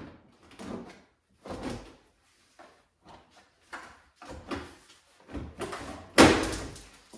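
Honda Pilot's plastic rear bumper cover being pushed and slid into place by hand: irregular bursts of plastic scraping and knocking against the body, with one loud knock about six seconds in.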